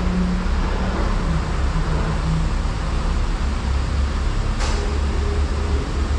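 Porsche Cayenne SUV idling, a steady low rumble close to its exhaust, with one short sharp sound about four and a half seconds in.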